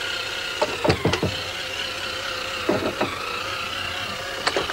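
A toy police car running under its own power: a steady motor whine, with a few short knocks and clatters.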